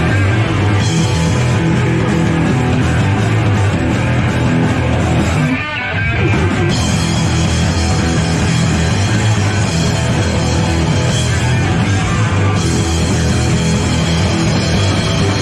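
Punk rock band playing live, loud and dense, with a short drop in the sound about five and a half seconds in.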